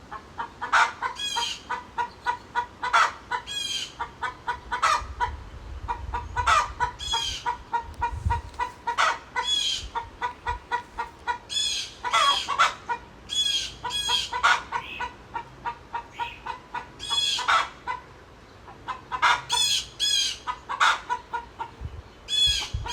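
Agitated chickens clucking and squawking in short, sharp, repeated calls, about one or two a second, with a brief lull a little past two-thirds of the way through.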